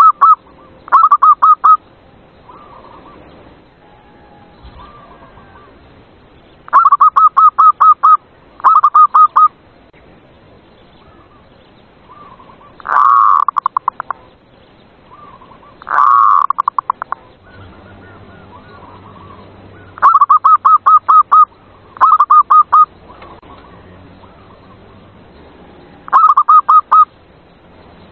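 Zebra dove (perkutut) cooing: about eight loud phrases of rapid staccato notes, each about a second long and often in pairs, repeated every few seconds. Two smoother, longer rolling coos come in the middle.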